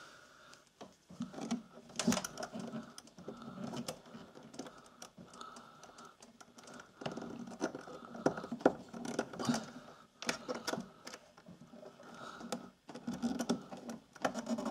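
Irregular clicks, taps and rustling of hands fumbling in a cramped space, fitting multimeter test leads onto a washing machine heating element's terminals.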